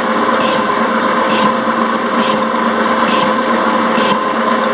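Horizontal milling machine running with a steady whine while a single-point cutter on a rotating arm cuts a radius on a steam cylinder block. The cutter takes an interrupted cut, biting into the metal with a short scraping burst once per revolution, about every nine-tenths of a second.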